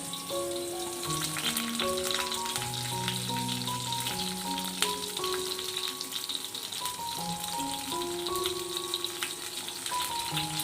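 Food frying in hot oil in a pan, a steady sizzle with scattered crackling pops. A background music melody plays over it.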